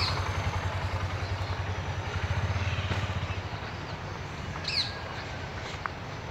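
A small engine running with a rapid, even low pulsing, fading away over the first three to four seconds. A single short high chirp, falling in pitch, comes a little before the five-second mark.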